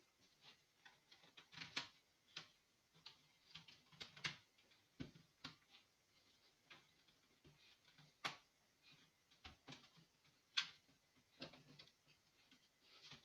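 Faint, irregular clicks and light taps, a dozen or more spread unevenly, with the sharpest two at about eight and ten and a half seconds in.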